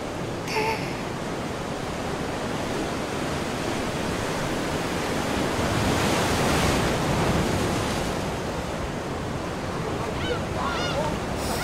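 Sea surf washing ashore, a steady rush of waves that swells to its loudest about halfway through and then eases off.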